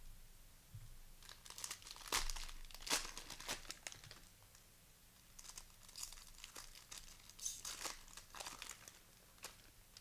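Plastic trading-card pack wrapper being torn open and crinkled by hand, in two spells of rapid crackling with a pause between them.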